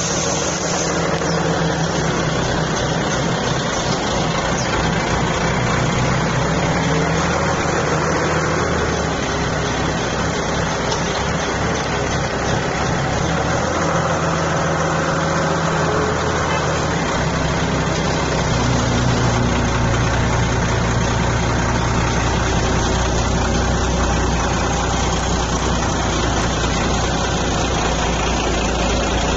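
A heavy vehicle engine running steadily, its note changing about 17 seconds in.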